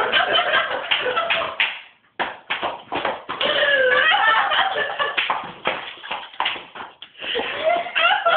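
Voices mixed with many sharp knocks and taps; a gap of about a quarter second comes two seconds in.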